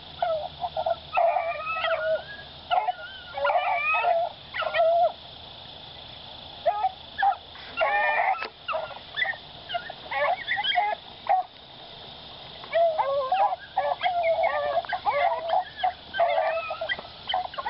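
Beagles baying while running a rabbit: bursts of overlapping bawls and chops from hounds on the scent, with two short lulls.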